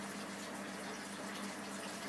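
Aquarium air stone bubbling steadily, a continuous rush of water, with a faint steady hum from the tank equipment underneath.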